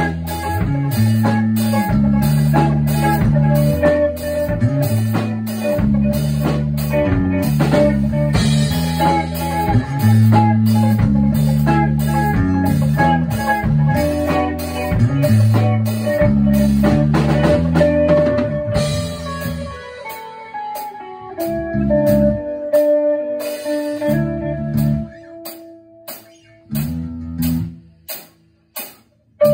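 A band playing a funk groove on guitar, bass and drum kit. About two-thirds through it thins out and drops much quieter to sparse, separate bass and guitar notes, then the full groove comes back in at the very end.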